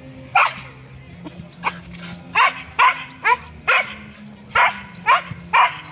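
Siberian husky barking: a run of about nine short, sharp barks at an uneven pace.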